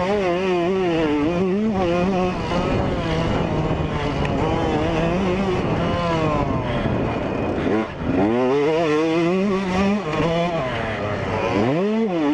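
2003 Yamaha YZ125's 125 cc single-cylinder two-stroke engine revving hard under way, its pitch climbing and falling with throttle and gear changes. It drops off briefly about eight seconds in and again near the end, then climbs steeply each time.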